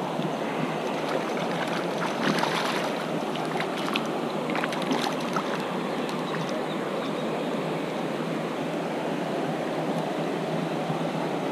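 Steady rush of river water. A hooked trout splashes and thrashes at the surface a few times in the first half.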